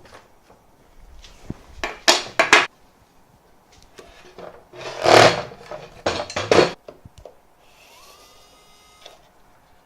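Tools and small parts being handled, scraped and set down during disassembly, in three loud clattering spells. Near the end comes about a second of a small motor's whine that rises in pitch and then holds steady.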